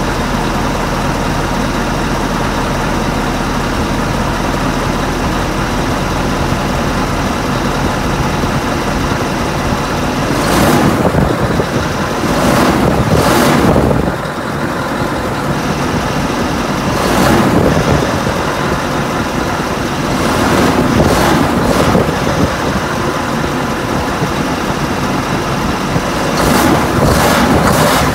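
Scania R730's 16-litre V8 diesel running steadily as the truck drives. About five short, loud rushes of noise come over it, about ten seconds in and again later on.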